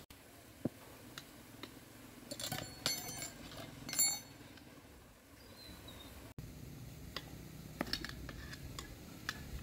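Metal hand tools clinking and tapping in scattered, irregular knocks, with a cluster of ringing metallic clinks about two to four seconds in.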